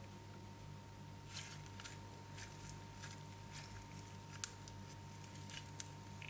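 Slime being squished and worked by hand, giving scattered soft sticky clicks and crackles, with one sharper click about four and a half seconds in. A steady low electrical hum runs underneath.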